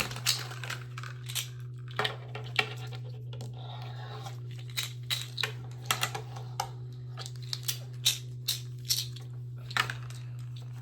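Small plastic fidget toys being handled: irregular sharp clicks and scratchy rattles from switches, rollers and spinning parts, over a steady low hum.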